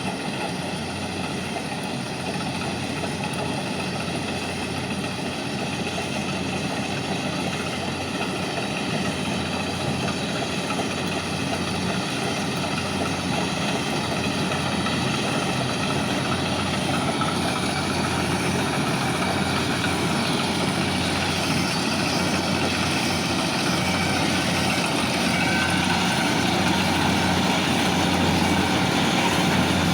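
Kubota DC68G combine harvester's diesel engine and machinery running steadily under load, growing gradually louder.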